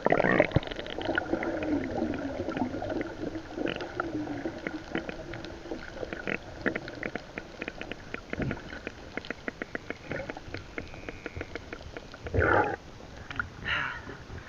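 Underwater ambience heard through a submerged camera: a muffled rumble and gurgle of bubbles at first, then a dense crackle of small clicks. Near the end the camera breaks the surface with a loud splash, and a second, shorter splash follows.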